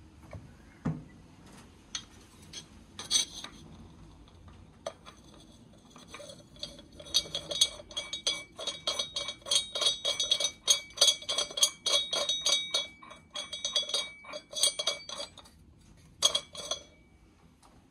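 Metal clinking: a few scattered knocks, then a fast run of sharp strikes, several a second, each leaving a bright ringing tone, with a short last burst near the end.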